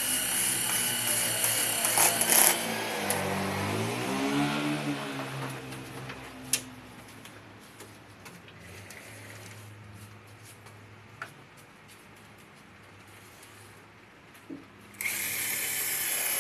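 Handheld electric drill running as it drives screws into wood. Its motor pitch rises and then falls a few seconds in, it goes quieter through the middle, and it runs loud again near the end.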